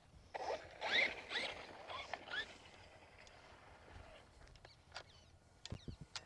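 Electric RC truck motor whining in short rising blips as the throttle is worked, followed by a few scattered light clicks and knocks.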